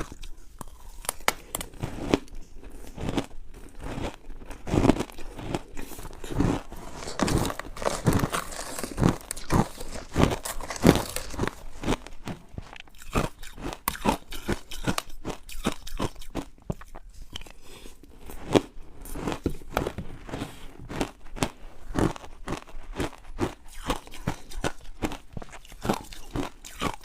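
Ice being bitten and chewed: a steady run of sharp, crisp crunches, thickest in the middle.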